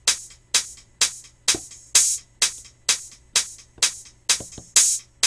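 Soloed drum-machine percussion loop from Native Instruments Maschine: short, bright hi-hat-like hits in a steady house-tempo rhythm, about two a second, with softer ticks between them.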